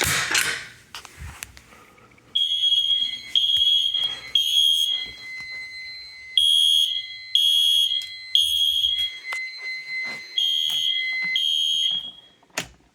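Fire alarm mini horns sounding in the temporal code-3 pattern: three short high-pitched blasts, a pause, then again. The alarm was set off by pulling a manual pull station, and a few clicks come just before the horns start. The last group breaks off after two blasts.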